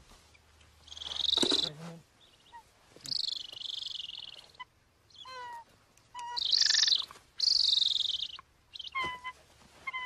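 A trapped male golden eagle calling while it is held and handled. It gives four loud, high, harsh screams, each under a second long, with short, softer whistled yelps between them.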